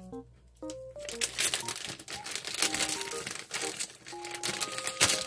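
Thin plastic bag of English muffins crinkling as it is handled and pulled open, with a loudest crackle near the end.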